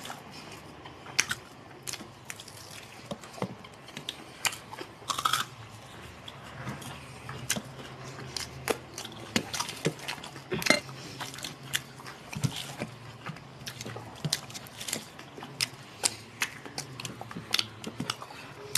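Two people eating rice and chicken curry with their hands: chewing, with many short, irregular clicks and smacks, and fingers working the food on steel plates.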